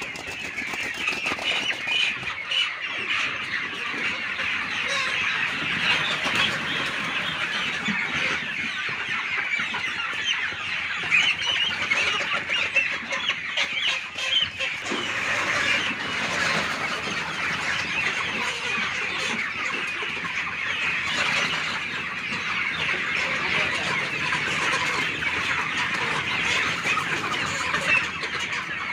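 A large flock of kampung (Indonesian native) chickens clucking continuously, many birds calling over one another.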